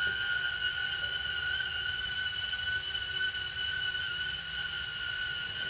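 HoverAir X1 mini drone's propellers running in flight: a steady high-pitched whine.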